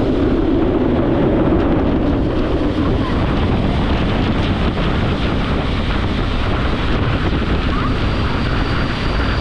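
Passenger train carriage running along the track: a steady, loud rush of wheel-on-rail noise and wind. A thin high whine comes in near the end.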